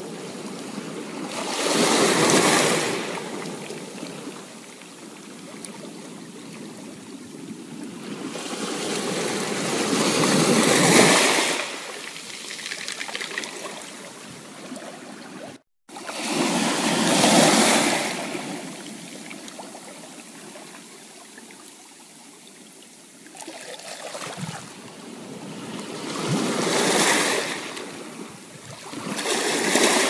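Small ocean waves breaking and washing up a sandy beach, the surf rising into a rush every several seconds and falling back to a soft hiss between. The sound cuts out completely for a moment about halfway through.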